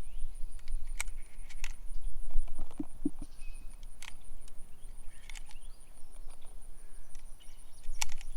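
Suppressed gunshots: about five quiet, sharp cracks spread over several seconds, 147-grain rounds fired through an EPC suppressor.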